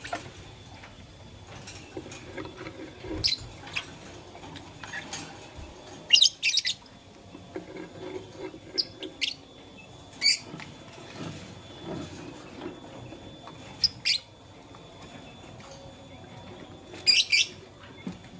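Lovebird giving short, sharp chirps at irregular intervals, some single and some in quick clusters of two or three.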